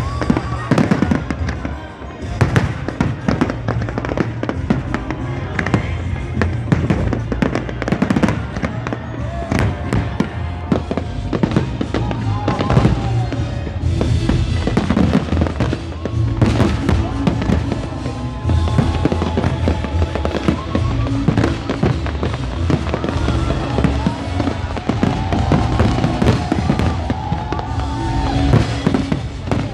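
Fireworks display: a dense, continuous run of bangs and crackles from bursting aerial fireworks, with music with a heavy bass playing beneath.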